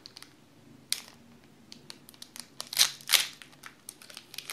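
Foil Pokémon booster pack wrapper being torn open and crinkled by hand: scattered small clicks and crackles, with a louder crinkling rustle about three seconds in.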